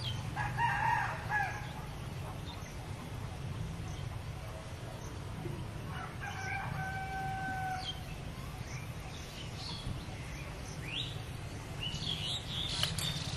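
Rooster crowing: a short call near the start and one long crow with a held note about six seconds in. Small birds chirp briefly near the end, over a steady low hum.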